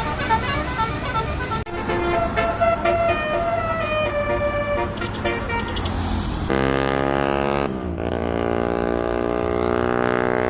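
Tour bus musical multi-note air horns (telolet/Basuri horns) playing quick melodies of short stepped notes, broken off twice. About six seconds in, a deep, buzzy, held horn tone takes over, dips in pitch briefly and carries on steadily.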